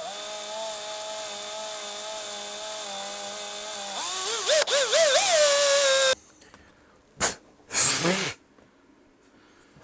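Small electric power tool motor whining at a steady speed, its pitch wavering for about two seconds before it cuts off suddenly. Two short hissing bursts follow near the end.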